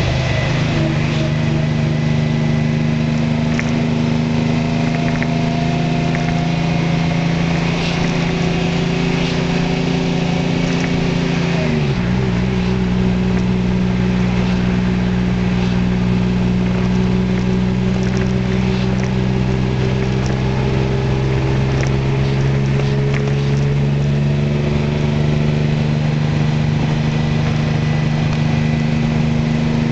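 New Flyer D40HF diesel bus engine running under way, heard from inside the bus. Its steady drone drops sharply in pitch about twelve seconds in, then slowly climbs again.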